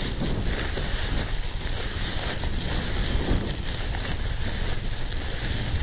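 Wind buffeting the microphone in a steady low rumble, with the crinkling rustle of a kite's nylon canopy being rolled up by hand.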